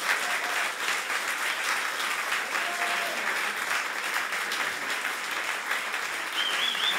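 Audience applauding steadily after a live song, with a long high-pitched call from someone in the crowd near the end.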